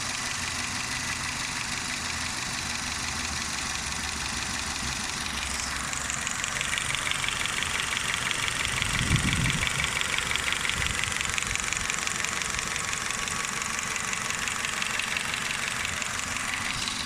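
Renault Mégane II 1.6 K4M petrol engine running rough with a rapid ticking knock; the owner says it misfires on one cylinder, knocks and detonates, running "like a tractor". The ticking grows clearer about a third of the way in, with a brief louder low surge about halfway through.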